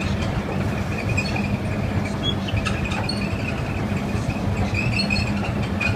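Escalator running steadily, a low machine hum under a wavering high-pitched whine.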